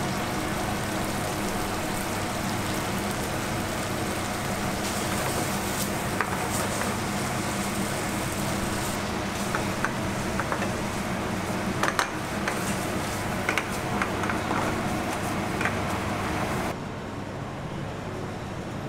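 Steady hiss and hum of a commercial kitchen with gas burners lit under frying pans, as pulled beef cooks. From about six seconds in, a spatula clicks and scrapes against the frying pan as the beef is stirred. Near the end the steady noise drops to a quieter background.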